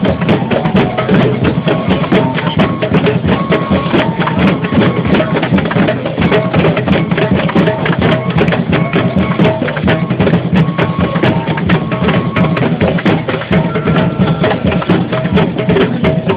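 Many hand drums and percussion instruments beaten together in a dense, continuous rhythm, a crowd drumming to make noise.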